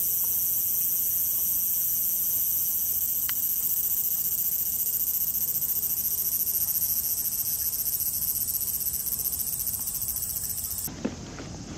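A chorus of summer cicadas buzzing steadily with a fast, shimmering pulse, cutting off suddenly near the end.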